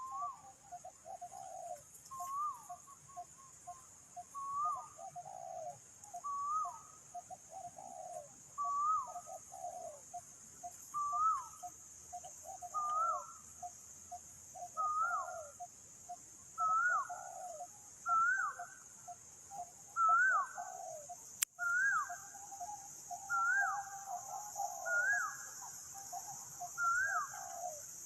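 Spotted doves cooing in repeated phrases, with another bird giving a short rising-and-falling call about every two seconds, over a steady high hiss. One sharp click a little past the middle.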